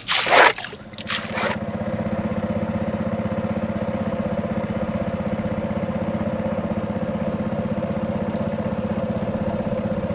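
Small boat engine running steadily at a constant speed, with a fast, even pulse, after a few short sounds at the start.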